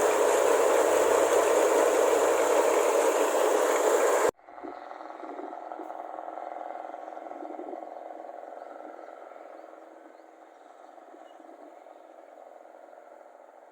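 Rice combine harvester running loud and steady, its engine and loud exhaust blending into an even noise, until it cuts off abruptly about four seconds in. After that there is only a much quieter mechanical rattle that fades away.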